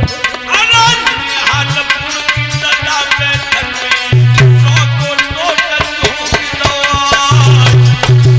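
Indian devotional music interlude: hand drums keep a steady rhythm, with deep bass strokes, under a sliding melodic instrument line.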